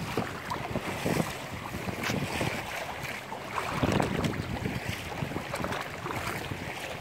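Wind buffeting the microphone in uneven gusts, over choppy lake water lapping against a canoe, with a stronger gust about four seconds in.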